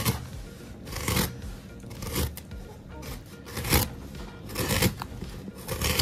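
Large knife cutting through firm elephant apple (Dillenia indica) fruit, a rough scraping slice about once a second.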